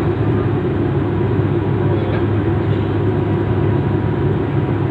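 Steady low rumble of a vehicle in motion, even throughout, with a faint steady whine above it.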